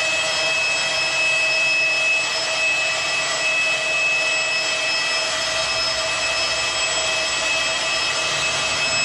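Steady, noisy ambient drone with several held high tones, the opening of a dark music track; a low rumble joins about halfway through.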